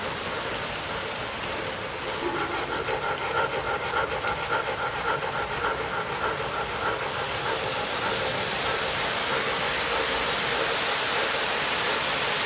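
Model trains running on a layout: a steady rushing of metal wheels on track, with a pitched sound pulsing about twice a second in the first half, and the rushing growing stronger in the second half as freight cars roll past close by.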